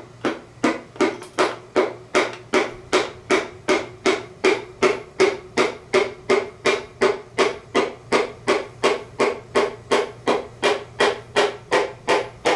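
Wooden end of a hammer handle tapping steadily on a piston crown, about three taps a second, each with a short ring. This is the number one piston being driven through a ring compressor into its cylinder bore on an engine short block.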